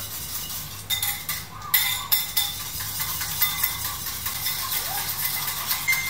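Wire balloon whisk beating egg yolks, a whole egg and sugar in a bowl: rapid, steady clicking and scraping of the wires against the bowl, picking up about a second in.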